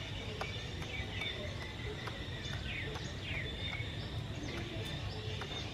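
Outdoor ambience: a steady insect drone with a few short descending bird calls about midway, over a constant low rumble.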